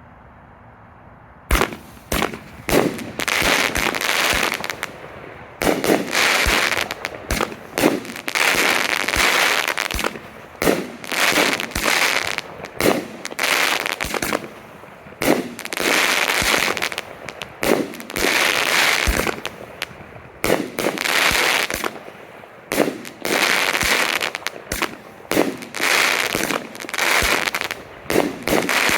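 Pyro Planet Space Cadet 16-shot 200-gram consumer firework cake firing. The first shot goes off about a second and a half in, then shot follows shot every one to two seconds, each a sharp bang trailed by about a second of noise.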